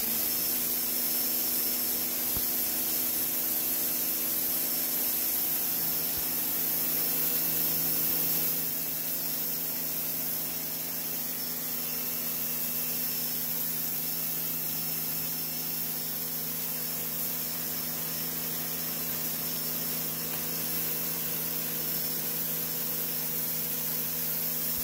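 Sun Joe electric pressure washer spraying through its 0-degree high-pressure nozzle onto a concrete floor, blasting off caked-on mud: a steady hiss of the jet over the even hum of the motor-driven pump. It starts abruptly and is a little louder for the first several seconds.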